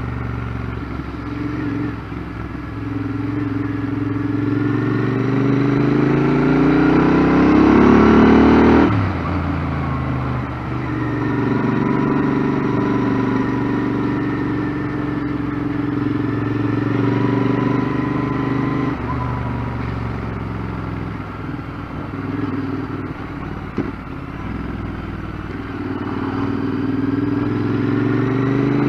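Royal Enfield Interceptor 650's parallel-twin engine under way, its pitch climbing for several seconds before dropping sharply about nine seconds in. It then runs steadily and climbs again near the end. Heard with wind rush from a mic inside the rider's helmet.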